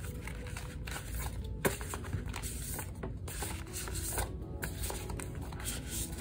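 Cardstock sheets and plastic photocard sleeves rustling and sliding against each other as a stack is handled and flipped through, with one sharp tap about a second and a half in.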